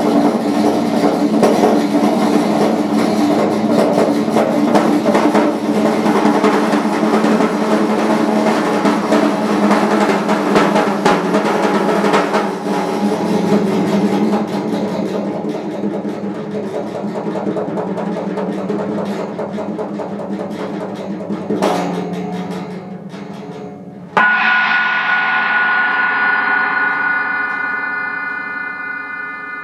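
Fast, dense mallet roll on a prepared snare drum and drums, slowly thinning out. About 24 s in it stops abruptly and a struck metal instrument rings on with several clear steady tones, fading slowly.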